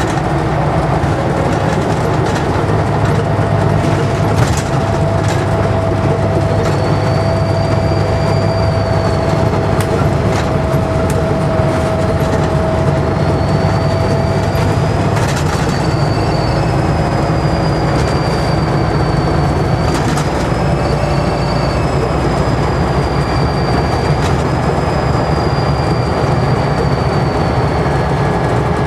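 2005 Scania N94UD double-decker bus heard on board: engine pulling with a loud, high turbocharger whistle that rises and falls from several seconds in, over a steady drone and short body rattles.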